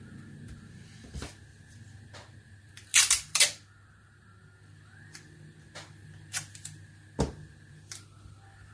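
Sharp clicks and taps of small hobby tools on plastic model parts: scattered single clicks, with a close pair of louder snaps about three seconds in. A steady low hum runs underneath.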